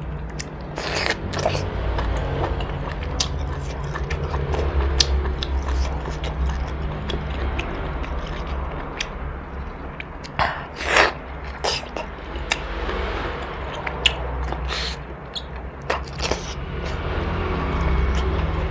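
A person eating noodle soup close to the microphone: biting and chewing with wet mouth sounds and short sharp clicks, over a steady low hum.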